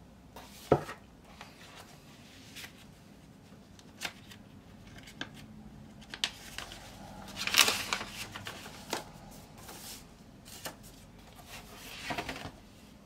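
Paper record sleeves and a shrink-wrapped vinyl album jacket being handled and slid across a desk: scattered rustles and light taps, a sharp knock just under a second in, and a louder crinkling rustle about halfway through.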